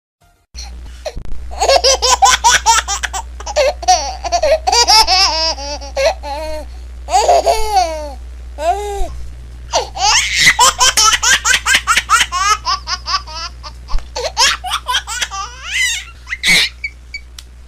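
Young children laughing, quick high-pitched peals one after another, starting about half a second in, over a steady low hum.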